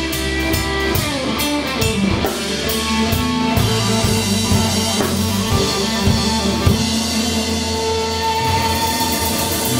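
Live blues-rock trio playing: electric guitar with long held lead notes over electric bass and a drum kit.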